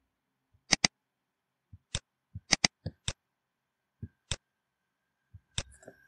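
Sharp clicks from a computer mouse and keyboard keys, about a dozen in all, several in quick pairs. A faint steady high tone sets in about four seconds in.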